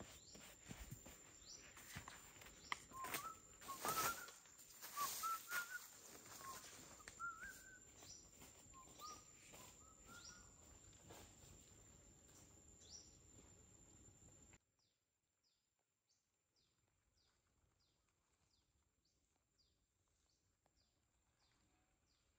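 Outdoor forest ambience with birds chirping and a steady high-pitched whine, and a few knocks in the first five seconds. About two-thirds of the way through it cuts off suddenly to near silence, leaving only faint high chirps repeating about twice a second.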